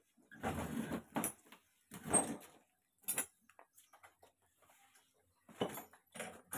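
Irregular knocks, scuffs and rustles from a man handling and climbing onto a motorcycle standing on its centre stand, with two louder clusters in the first couple of seconds and more near the end. The engine is not yet running.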